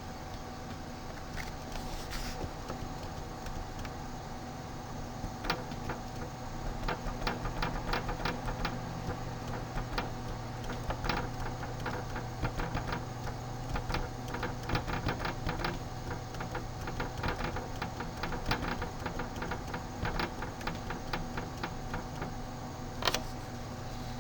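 Rapid, irregular clicking of a computer mouse and keyboard being worked, in clusters through most of the stretch with one louder click near the end, over a steady low hum.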